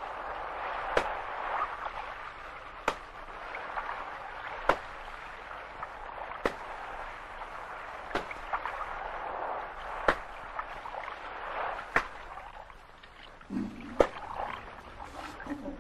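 Lashes of a cat-o'-nine-tails in a flogging: a sharp crack about every two seconds, eight in all, over a steady wash of sea and ship noise.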